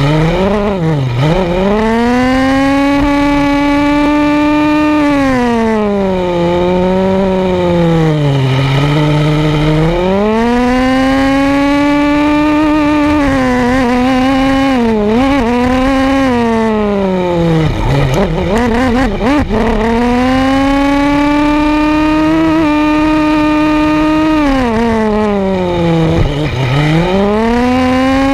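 Small nitro glow engine of a 1:10 Redcat Tornado II R/C buggy, heard close up from a camera mounted on the car, revving high and dropping back again and again as it is driven, with a few deep drops in revs and a brief rough, warbling stretch past the middle.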